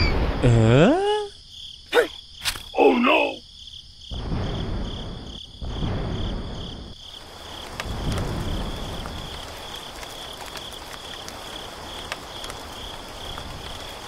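Insects chirring steadily in a high, pulsing band throughout. In the first few seconds there are a few short pitched calls that bend in pitch and some sharp clicks.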